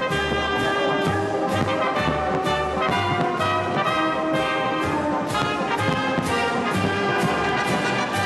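Brass orchestra playing, with held brass chords over a steady beat of about two strokes a second.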